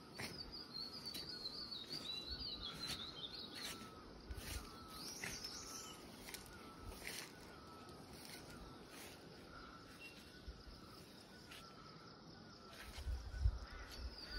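Faint countryside ambience: a bird singing a warbling phrase in the first few seconds, over soft ticks repeating about every half second. A few low thumps come near the end.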